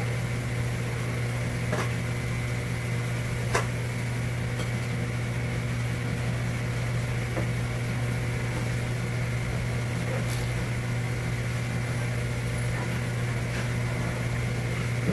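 Steady low machine hum with a thin high whine above it, unchanging throughout, and a few light clicks, the clearest about three and a half seconds in.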